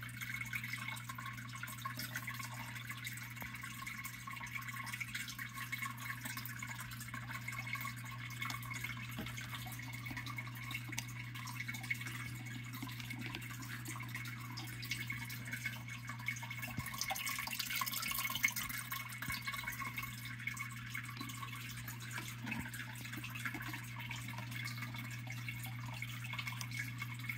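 Steady trickling and dripping water over a low, steady hum, with small splashes from a metal spoon scooping in a plastic tub of water.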